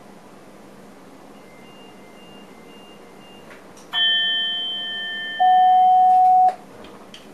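Train cab warning signals: a loud bell-like chime strikes about four seconds in and rings on, then a loud steady electronic tone sounds for about a second. Faint short beeps repeat before them, and there are a few light clicks.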